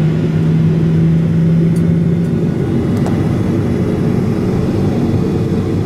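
Jet airliner's engines and airframe heard from inside the cabin while taxiing: a steady low rumble, with a hum that drops out about two seconds in.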